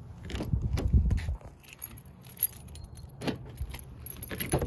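Car keys jangling in hand, with scattered light metallic clicks and handling rustle, busiest in the first second or so.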